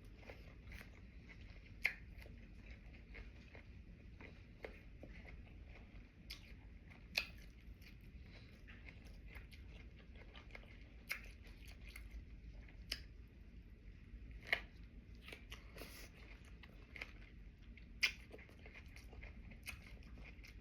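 Close-up chewing of cucumber sushi boats, soft and wet, with a sharp crisp crunch every few seconds.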